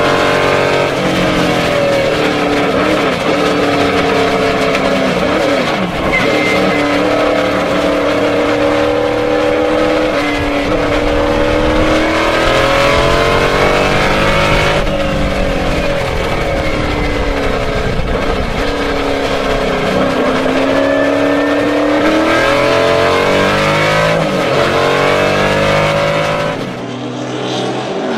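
Lola T70 Mk III B's 450 hp Chevrolet V8 at racing speed, heard from inside the cockpit, its note climbing and dropping over and over as it is driven hard around a circuit. Near the end the sound dips briefly and switches to the car heard from trackside.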